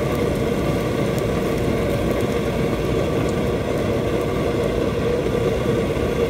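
Steady, loud mechanical drone with a constant hum from commercial kitchen equipment at a gas range. Faint scrapes of a metal spatula in the frying pan come through in the first few seconds.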